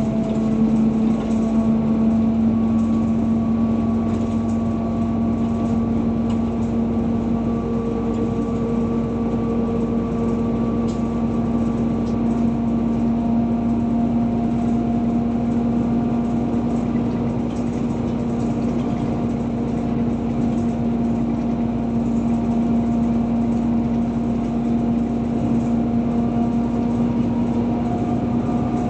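A car driving at a steady cruising speed: a continuous drone of engine and tyre-on-road noise with a steady low hum.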